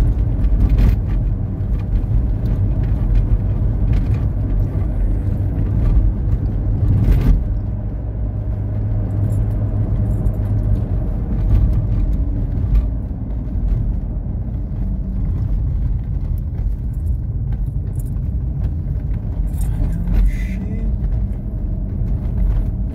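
Steady low engine and road rumble heard inside a moving car's cabin, with a few brief clicks and rattles now and then.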